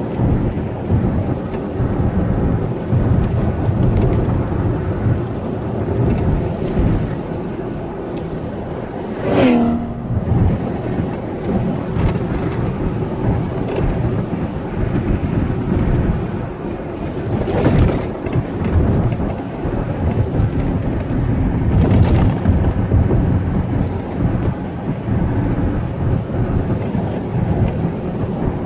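Car road and wind noise while driving: a steady, loud, low rumble from tyres and airflow. About nine seconds in a brief whistle falls quickly in pitch, and a couple of short bumps come later.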